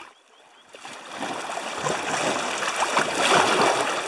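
River water rushing over rocks in a rapid. Nearly silent for about the first second, then the rushing swells and holds steady.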